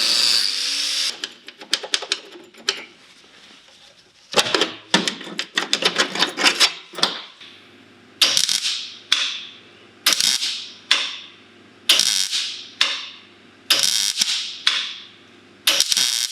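Car bodywork on sheet metal: a power tool stops in the first second, then comes a run of sharp strikes, each ringing briefly and fading, at first in a quick cluster and then about once a second.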